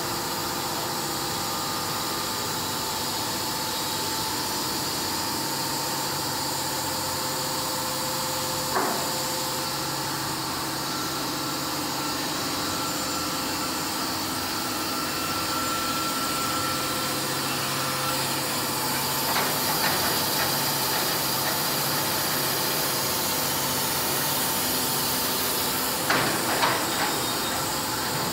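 Wood-Mizer WM3500 band sawmill running steadily: a constant mechanical hum and hiss with faint whining tones. There is a sharp knock about nine seconds in and a few clattering knocks near the end.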